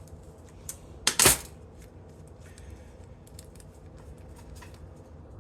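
Small metal parts and hand tools clicking and clinking as they are handled, with a louder clatter about a second in.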